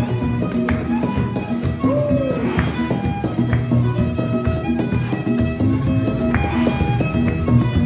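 Background music with a steady beat and a quick, high rattle running through it.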